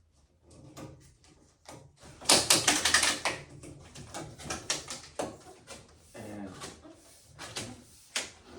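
A rapid series of clicks and taps from a flexible locking strip being pressed by hand into the channel around a display panel, densest and loudest about two seconds in.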